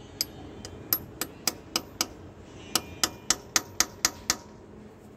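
Steel bar tapping a broken-bolt extractor to drive it into a snapped engine bolt: a dozen or so sharp, ringing metal-on-metal strikes, about four a second, with a short pause about two seconds in.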